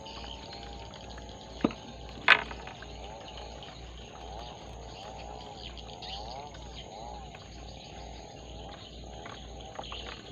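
Outdoor waterside ambience with a steady high insect drone, broken by two sharp clicks about two seconds in, the second louder.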